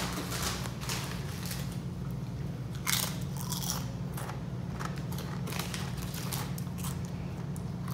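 People biting and chewing Doritos tortilla chips, with irregular crisp crunches, over a steady low hum.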